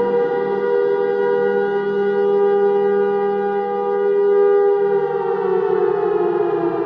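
Civil defense warning siren sounding a steady chord of two close pitches, then winding down and falling in pitch from about five seconds in.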